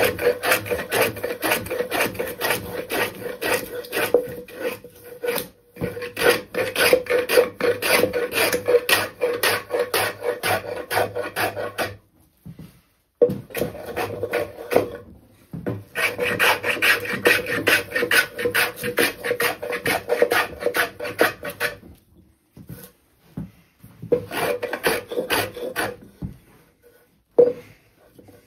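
Wooden scrub plane with a slightly cambered blade flattening the face of a spruce board: quick, rough, scraping strokes that tear off shavings. The strokes come in several runs broken by short pauses.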